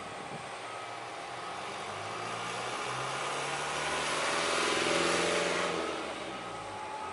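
Truck engines running. A light truck drives past close by, loudest about five seconds in, and its engine note drops away as it goes. Underneath is the slow-moving Freightliner prime mover hauling an excavator on an oversize low loader.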